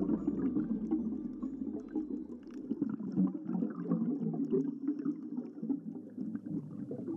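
Underwater sound through a dive camera's housing: a muffled, gurgling rush from scuba divers' exhaled regulator bubbles, with faint scattered crackles.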